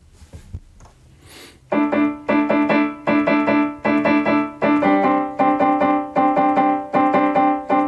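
Piano playing a fast repeated pattern of chords, about three strikes a second, starting nearly two seconds in; the chord shifts to a new position about halfway through.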